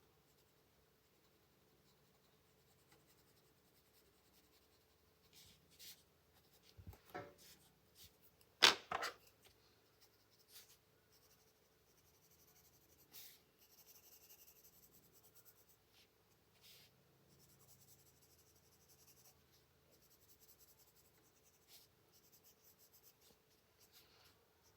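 Faint scratching of a coloured pencil on paper in short strokes, with a few sharp knocks and clicks around six to nine seconds in, the loudest near nine seconds.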